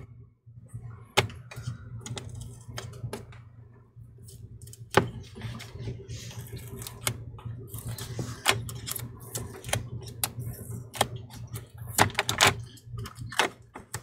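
Plastic pry tool clicking and scraping against a laptop CPU fan's plastic housing and the chassis as the fan is levered loose: irregular sharp clicks throughout, with a stretch of rustling scraping in the middle.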